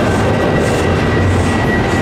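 A train running close by: loud, steady noise of wheels on the rails, with a thin, steady high tone coming in about half a second in.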